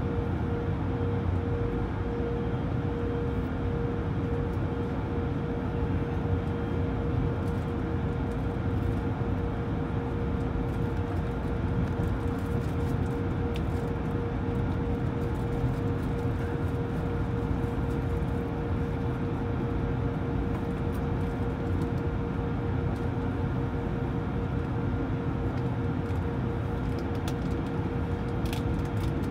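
Airbus A220-100's Pratt & Whitney PW1500G geared turbofan engines running steadily at low power, heard inside the cabin: a constant engine hum with a steady mid-pitched whine over it.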